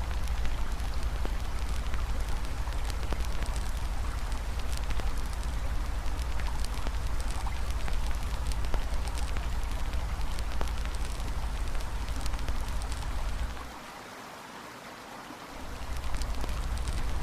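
Campfire crackling with frequent small pops over a steady rush of flowing river water and a low rumble. The low rumble drops out for about two seconds near the end, then returns.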